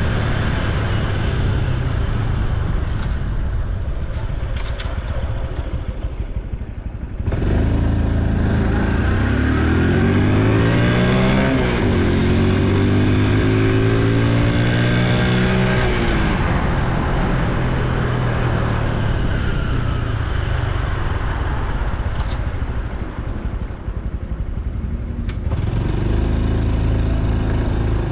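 Honda Super Cub C125's air-cooled 125 cc single-cylinder engine and exhaust on the move. About seven seconds in it gets louder and accelerates, pitch rising, dropping at a gear change, then rising again before settling to a steady cruise. It eases off a little past twenty seconds and picks up again near the end.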